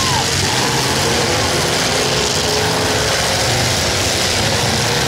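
Engines of many demolition derby cars running and revving together, a steady loud din without any single crash standing out.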